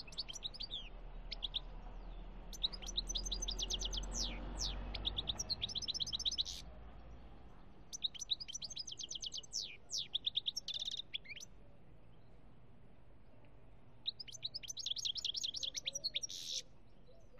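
European goldfinch singing: phrases of rapid, high, tinkling twitters and trills lasting a few seconds each, broken by pauses of one to three seconds.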